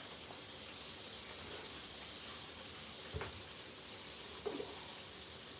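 Pork chops frying in a pan, a steady sizzle, with a faint knock a little past halfway.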